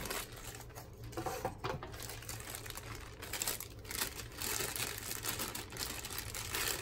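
Thin plastic bags around laptop charger cables crinkling and crackling as hands pull them out and handle them, a dense run of small crackles.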